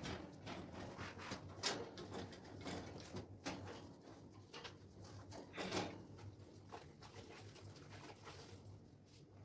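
Irregular knocks, clicks and scrapes of a pet birdcage being handled and cleaned, loudest about two seconds in and again near six seconds, over a low steady hum.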